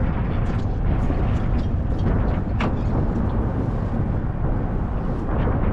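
Wind buffeting the microphone: a steady low rumble with irregular faint crackles.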